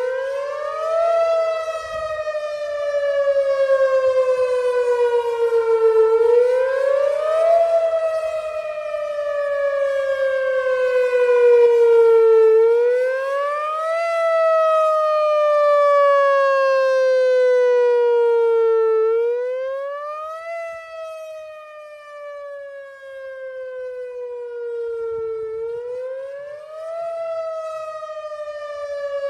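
Whelen Vortex outdoor warning siren sounding its monthly test signal: one tone that jumps up in pitch in about a second, then glides slowly back down, repeating about every six and a half seconds. The volume swells louder midway and grows fainter later on.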